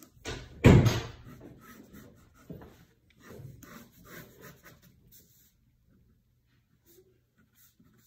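A loud thump a little under a second in, followed by a few softer knocks and rustles, then near quiet.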